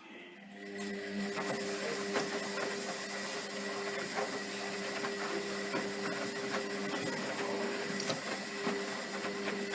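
Zanussi FlexiDose ZWG 6161 P washing machine running: a steady mechanical hum that switches on about half a second in and holds.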